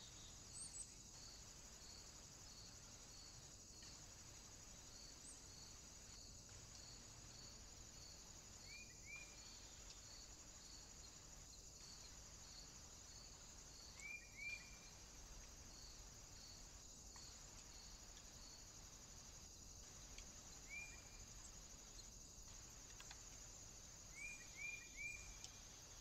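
Faint outdoor ambience from a trail camera's microphone: a steady high hiss with a regular insect-like pulse about twice a second, and a few short high chirps in pairs and threes. The sound briefly drops out every few seconds.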